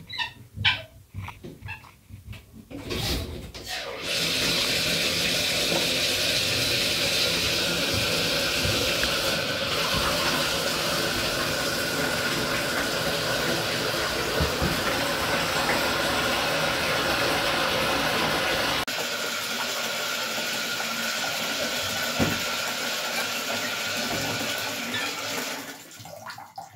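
Cold water running from a bath mixer tap into a bathtub, a steady rush that starts about four seconds in after a few knocks at the tap, and dies away near the end as the tap is turned off.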